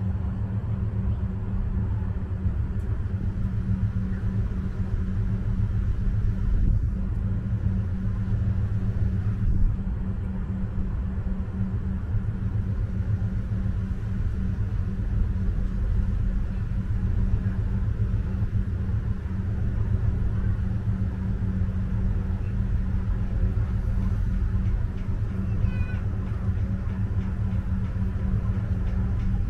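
Steady low rumble and hum of a car ferry's diesel engines, unbroken throughout.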